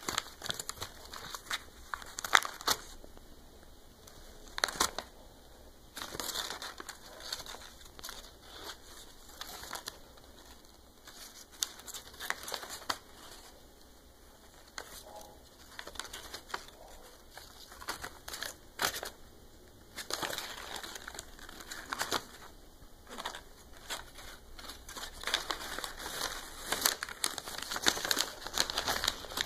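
A cat biting, clawing and tearing a sheet of paper: irregular crumpling and crinkling with sharp rips, busier in the last third.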